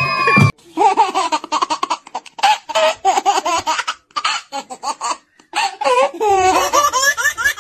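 A young child laughing hard: quick runs of high-pitched giggles broken by short pauses for breath.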